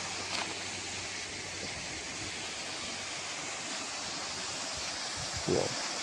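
Waterfall: falling water rushing steadily as an even hiss, with a short bump near the end.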